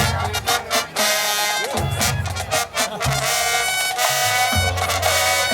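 High school marching band playing loud, sustained brass chords over low bass notes, with drum hits marking the phrases.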